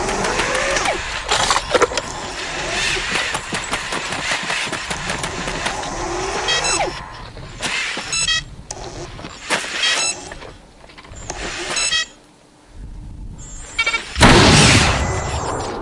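Humanoid robot's servo motors whining in short rising glides amid mechanical clatter, with several sharp knocks and fast ticking in the middle. A loud crash comes about 14 seconds in.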